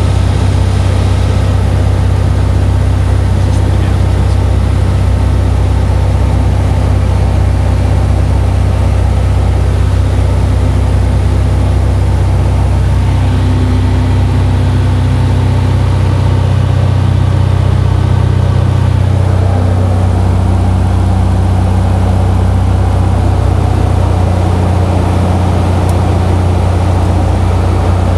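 A Cessna 172's six-cylinder piston engine and propeller droning steadily, heard from inside the cabin in flight. About two-thirds of the way in, the note shifts slightly lower, as with a small power change on the descent to the runway.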